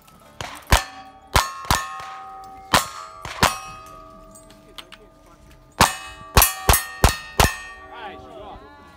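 Gunshots with steel plate targets clanging and ringing after each hit, about ten in two quick strings: five in the first three and a half seconds, then five more starting about six seconds in.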